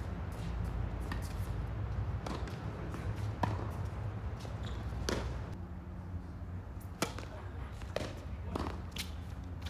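Tennis balls knocking off rackets and bouncing on an outdoor hard court, in scattered sharp knocks a second or two apart, over a steady low hum.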